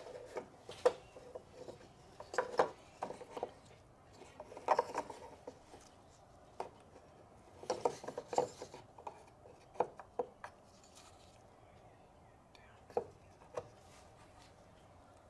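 Plastic clicks, taps and rubbing as a mass air flow sensor is fitted back into its port in a plastic air filter housing. The sounds come in short clusters of sharp clicks with pauses between, and stop a little before the end.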